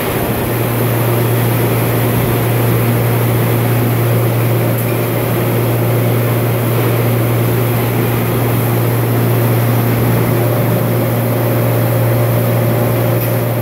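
10-inch bar rolling mill's roll stands and drives running with a loud, steady drone and a deep hum, while a hot steel bar is rolled through them.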